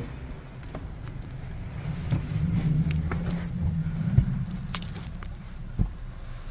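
Keys jingling and small clicks and knocks of handling inside a car, over a low rumble, with a single low thump near the end.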